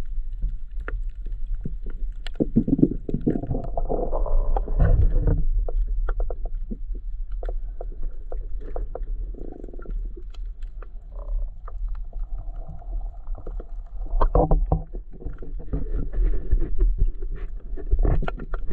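Underwater sound picked up by a GoPro camera in its housing on a coral reef: a steady low rumble with scattered sharp clicks, and louder swells of muffled water noise a few seconds in and again near the end.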